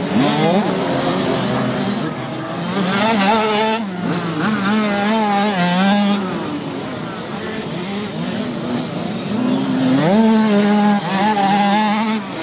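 Several 65 cc two-stroke minicross bikes racing in a pack, their engines revving up and down in quick, warbling bursts as the riders work the throttle through the corners. The revs climb sharply just after the start and again about ten seconds in.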